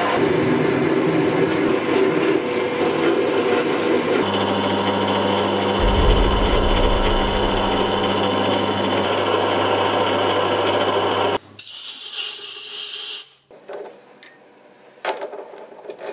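Metal lathe running steadily with its chuck spinning, a steady motor hum. About eleven seconds in it cuts off, followed by a brief hiss and a few sharp metal clicks as the chuck jaws are handled.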